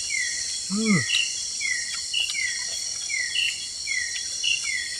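Forest night ambience: insects droning steadily, with a repeated chirping call, a short high note followed by a falling one, coming a little more than once a second. A brief low vocal sound is heard about a second in.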